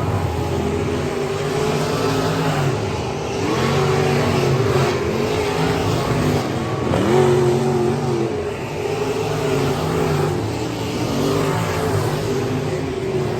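Dirt-track modified race car engine running hard, its pitch dropping and climbing again several times as the throttle is lifted and reapplied.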